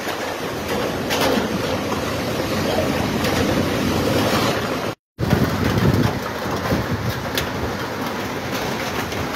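Typhoon wind and heavy rain blowing hard, a steady rush with wind buffeting the microphone. The sound drops out for a moment about five seconds in, then comes back with more low rumble from the wind on the microphone.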